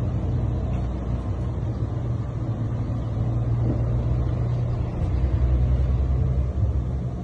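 Steady low mechanical hum with a noisy background.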